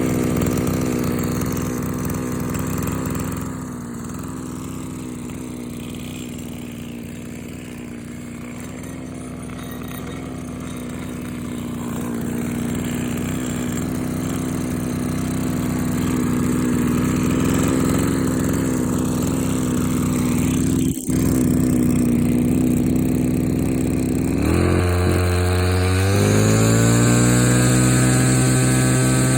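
Small two-stroke engine of a Komatsu Zenoah BC2211EZ brush cutter running at a steady speed, then revved up from about 24 seconds in, its pitch climbing.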